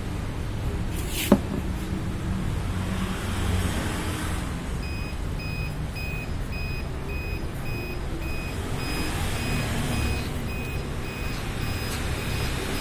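A single sharp click about a second in, then, from about five seconds in, short high electronic beeps repeating at an even pace from the HDM-02 mug heat press's controller, over a steady low background hum.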